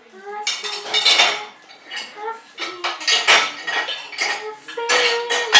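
A young child's high voice making short wordless hums and babbles that slide up and down, mixed with mouth noises from licking an ice cream cone. About five seconds in, one longer hum holds a steady pitch.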